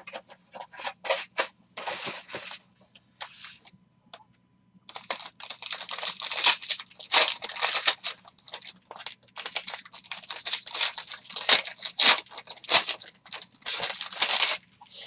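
Foil wrapper of a trading-card pack being torn open and crinkled by hand: light handling clicks at first, then about five seconds in a long run of sharp crackling bursts as the foil is ripped and pulled off the cards.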